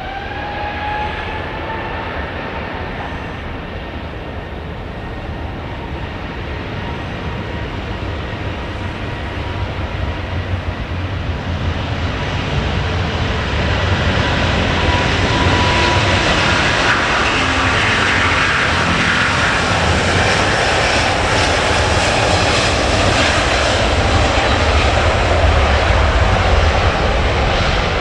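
Airbus A350 twin-jet airliner's Rolls-Royce Trent XWB engines spooling up for takeoff. A rising whine at the start settles into a steady tone, then the jet roar grows louder through the second half as the aircraft accelerates on its takeoff roll.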